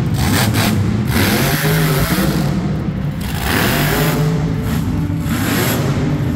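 Monster truck engine revving up and down several times, its pitch rising and falling.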